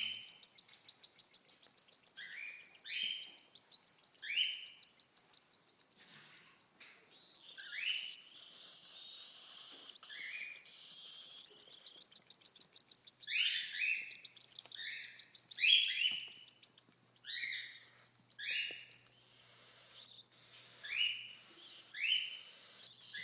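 Cockatiels calling: short upward-sweeping chirps, repeated every second or so, over fast trains of rasping ticks at about ten a second that run several seconds at the start and again in the middle.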